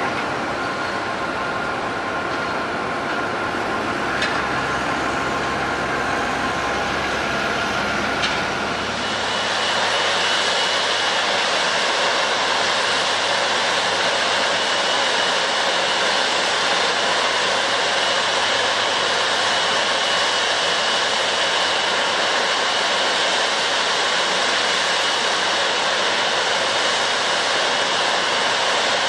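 Jet airliner engines running: a steady roar with faint whining tones and two brief clicks. About nine seconds in, it switches abruptly to a slightly louder, even roar with a steady high whine.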